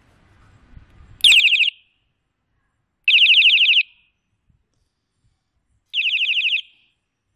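Built-in electronic horn of a bicycle headlight sounding three short, very loud blasts, each a high-pitched, fast-warbling siren tone lasting well under a second, about two seconds apart.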